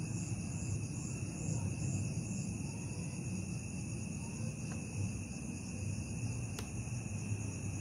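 Night chorus of crickets, trilling steadily in several high pitches, one of them pulsing a little over twice a second, over a low rumble. One sharp click about two-thirds of the way through.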